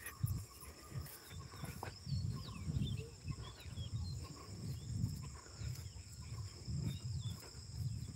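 Insects droning steadily at a high pitch, with soft footsteps on a grassy field bund about once a second.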